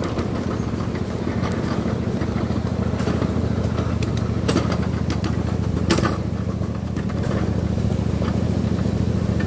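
Miniature ride-on train running steadily: a continuous low engine hum with a few sharp clacks, the loudest about six seconds in.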